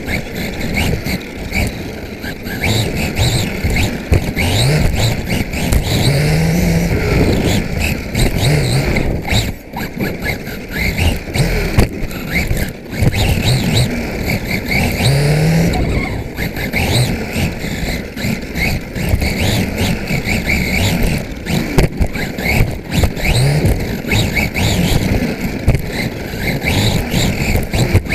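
Carisma GT14B 1/14-scale electric RC buggy, heard from a camera on its chassis, driving laps: the motor and drivetrain whine rises and falls with the throttle, over constant rattles and sharp knocks from the chassis and suspension on the track.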